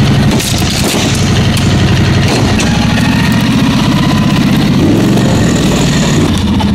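Small gasoline engine running steadily at idle.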